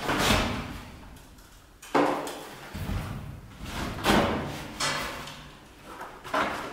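A fibreglass stepladder being carried and set down inside an empty steel shipping container, with footsteps on the container floor: about five separate clunks and thuds, a second or two apart, each followed by a short ring.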